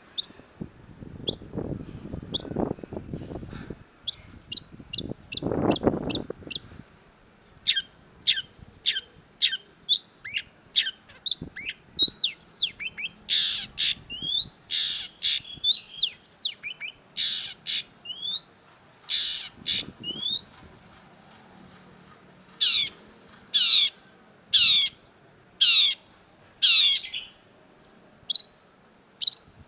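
Long-tailed shrike calling: a fast series of short, sharp downward-sweeping notes with harsh rasping calls mixed in, then a run of evenly spaced double notes near the end. A low muffled rumble sounds twice in the first few seconds.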